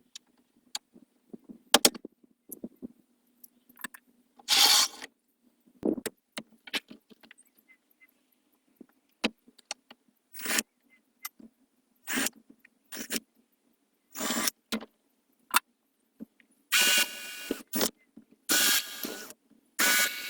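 Repair work on the slider of an old farm building's sliding door: scattered knocks and metal clicks, with a louder scraping rattle about four and a half seconds in and several longer scraping, rolling sounds near the end as the door hardware is worked.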